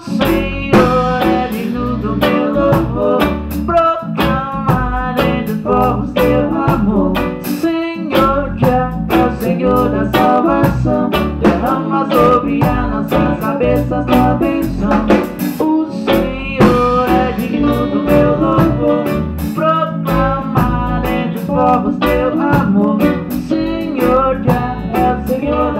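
A live band playing with electric guitar to the fore over keyboard and drum kit, keeping a steady beat.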